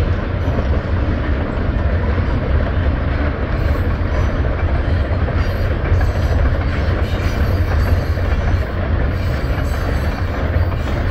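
Canadian Pacific Holiday Train's freight cars rolling past on the rails: a loud, steady rumble with no breaks.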